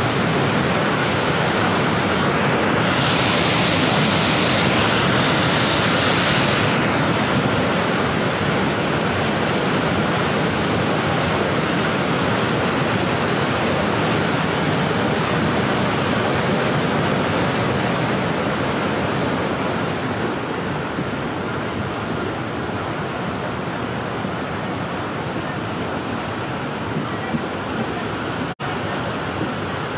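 Muddy floodwater pouring over a dam in a flash flood, a loud, steady rushing that eases slightly after about two-thirds of the way through.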